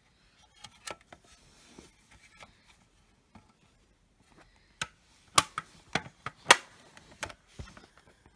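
Handling noise of a plastic ceiling speaker strobe housing being picked up and turned over: scattered clicks and knocks, with a run of louder knocks about five to seven seconds in.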